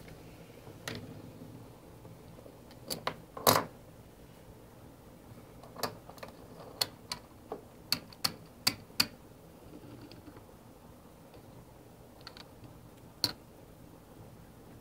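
Small plastic USB novelty dog toy and its plug being handled and set on a wooden desk: scattered light clicks and taps. There is a sharper knock about three and a half seconds in, and a quick run of clicks between about six and nine seconds in.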